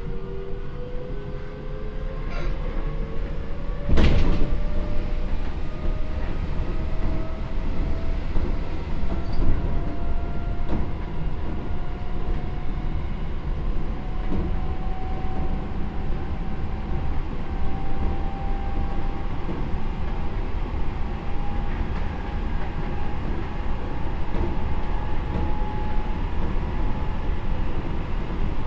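Seibu 9000 series electric train running, heard inside the car: the Hitachi IGBT VVVF inverter and traction motors whine, climbing steadily in pitch as the train gathers speed, over wheel-on-rail rumble. A single sharp knock comes about four seconds in.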